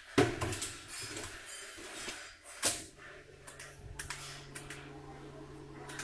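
Stainless-steel door of a batch industrial microwave drying oven shut with a sharp metal clunk, followed by a second heavy clunk about two and a half seconds later. After the second clunk a steady low electrical hum from the running oven sets in.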